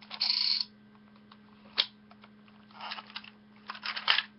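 Ben 10 Ultimate Alien chest badge toy being turned: a short burst of its electronic sound effect at the start, then scattered small plastic clicks from the dial as it turns.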